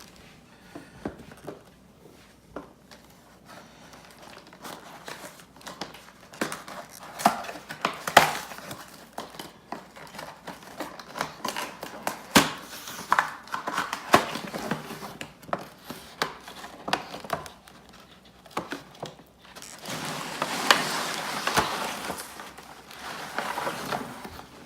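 Packaging of a tool set being handled and pulled open: crinkling and rustling, with scattered sharp clicks and knocks, denser rustling near the end.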